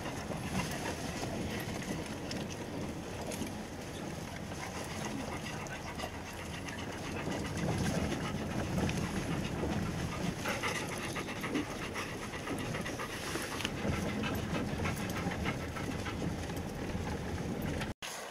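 Dogs panting heavily inside a car's cabin while the car rolls slowly over a rough gravel track, its tyres and body rumbling; the rumble grows louder for a few seconds in the middle.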